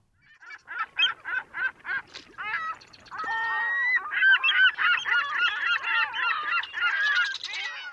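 A series of short animal calls, a few per second, swelling into a dense chorus of many overlapping calls about four seconds in.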